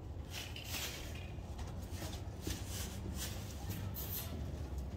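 Faint rustling and scuffing as a plastic-bag training flag is swung and a horse and handler move in the soft sand of a round pen, over a steady low hum.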